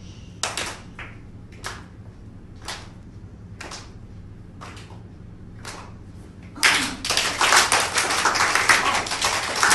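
Single hand claps, evenly spaced about one a second. About two-thirds of the way in, many people break into loud, dense clapping.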